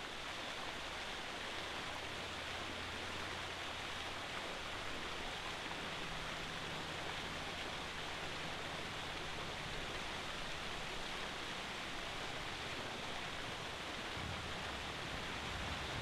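Steady, even hiss of outdoor background ambience with no distinct events, and a faint low hum underneath.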